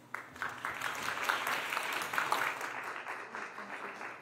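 Audience applauding, building quickly at the start and thinning out toward the end.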